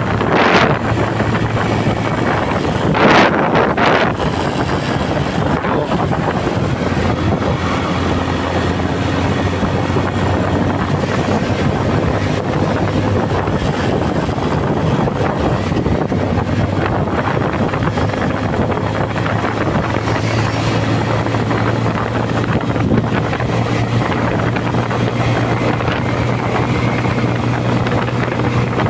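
Bajaj Pulsar LS135's single-cylinder engine running steadily at highway cruising speed, about 85 km/h, under a constant rush of wind on the microphone. Brief louder gusts of wind noise come about half a second in and again around three to four seconds in.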